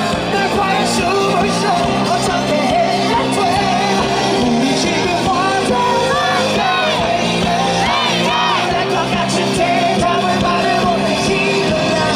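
Live rock band playing in a large hall, with a loud voice close to the microphone singing along and crowd yelling.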